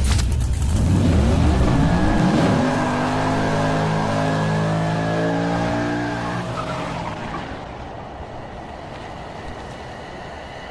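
Car engine revving up, its pitch climbing over the first few seconds, then holding steady before fading away about two-thirds of the way through.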